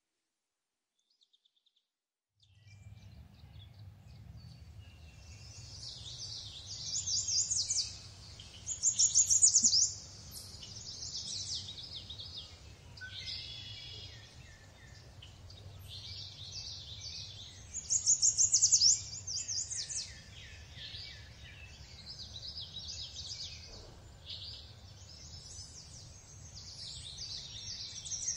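Several forest birds singing, overlapping chirps and quick high trills, with the loudest bursts about a third and two thirds of the way in. A faint low rumble runs underneath, and the first two or three seconds are silent.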